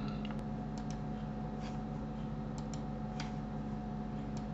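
Scattered clicks of a computer mouse and keyboard, about eight at uneven intervals, over a steady low electrical hum.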